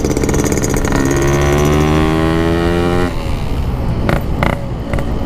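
Yamaha RX-King single-cylinder two-stroke engine through an aftermarket PK3 exhaust, pulling under throttle with its pitch rising gently. About three seconds in the steady note drops away into a rougher, lower running sound with a few sharp ticks.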